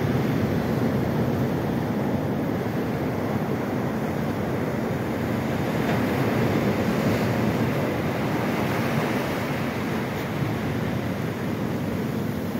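Ocean surf breaking and washing up a sandy beach: a steady rush of water and foam that swells a little about halfway through.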